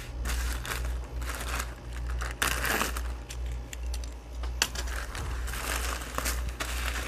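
Grey plastic poly mailer bag crinkling and rustling in irregular bursts as it is handled and turned over, over a steady low hum.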